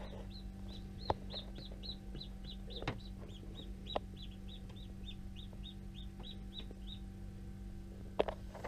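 Newly hatched chick peeping steadily, about three or four short high peeps a second, stopping about seven seconds in. Under it runs the incubator's steady hum, with a few light taps.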